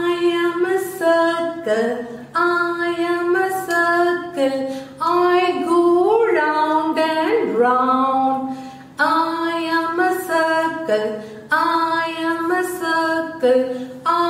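A woman singing a simple melody solo, without accompaniment, in short held notes.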